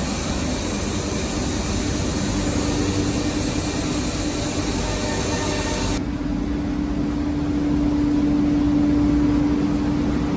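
Steady mechanical running noise of workshop machinery with a constant hum; about six seconds in the hiss drops away sharply and the hum grows louder.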